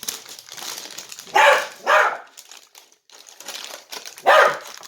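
A dog barking three times, two barks close together and then one more, guarding the kitchen food against another person. Softer rustling continues underneath.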